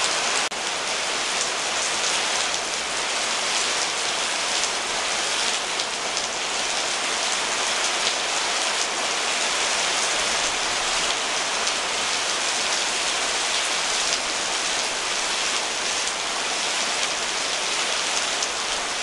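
Steady rain falling, an even hiss that keeps on without a break.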